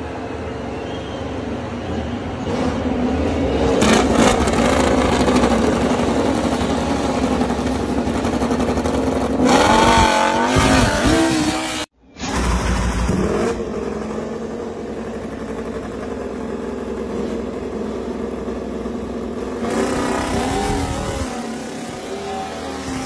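Honda RC213V MotoGP bike's V4 engine running, with repeated throttle blips that rise and fall in pitch about ten seconds in. The sound breaks off for an instant about halfway, then the engine runs on steadily.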